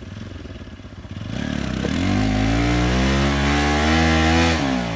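Motorcycle engine running low at first, then revving up with a steadily rising pitch for about three seconds and dropping off near the end. The bike is stuck in deep mud, and the revs come as the rider tries to power it out.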